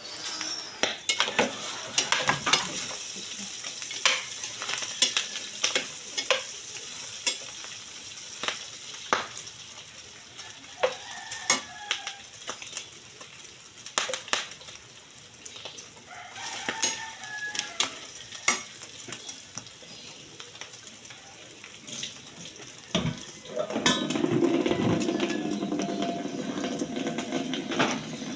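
Pork pieces frying in a pan with a steady sizzle, while a utensil stirs them, scraping and clicking against the pan many times. Near the end a louder, lower rushing sound comes in.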